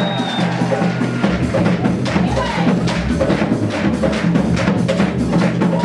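Background music with percussion keeping a steady beat.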